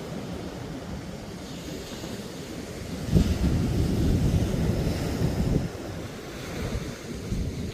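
Ocean surf breaking and washing up the sand, with wind buffeting the microphone. The surge grows louder about three seconds in and eases off again a couple of seconds later.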